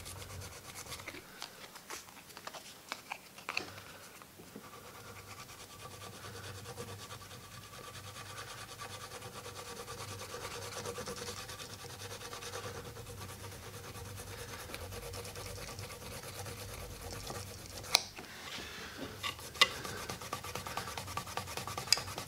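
Faint scraping of a plastic credit card across wax-filled seams in an oak chair joint, taking off the excess filler wax. A few light ticks come in the first few seconds, and two sharp clicks come near the end.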